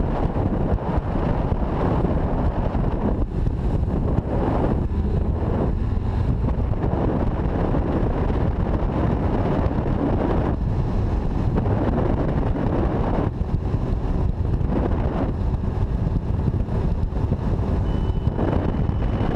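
A 90 hp outboard motor pushing a bass boat at high speed, running steadily through a top-speed run, with wind buffeting the microphone.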